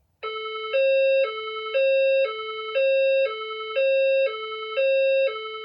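Voice-evacuation fire alarm speaker sounding its two-tone hi-lo alert signal, switching between a lower and a louder higher pitch about every half second. It is the alert tone that precedes the recorded message announcing a reported event in the building.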